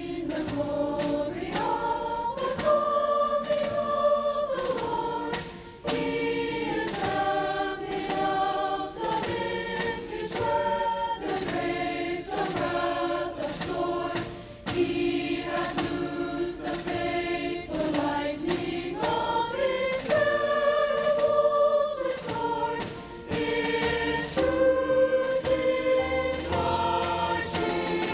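Mixed-voice choir singing with piano accompaniment, in long sustained phrases with brief breaks between them.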